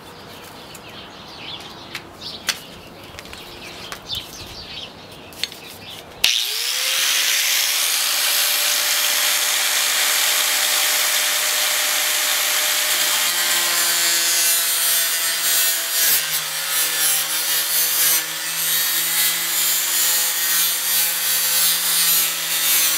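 Light taps and handling noises, then about six seconds in a handheld high-speed power cutting tool starts with a rising whine that settles into a steady high-pitched whir. It is cutting an opening through a fiberglass car hood, and a lower drone joins partway through as it bites into the material.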